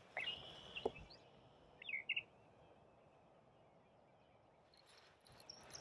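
Faint bird calls over quiet outdoor ambience: a held high whistle in the first second, two short chirps about two seconds in, and faint high chirps near the end, with a light click near the one-second mark.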